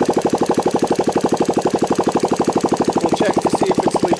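Kawasaki Lakota KLF300 single-cylinder four-stroke ATV engine running on a test bench at a steady idle, a fast, even beat with no knocking or misses: the engine runs well.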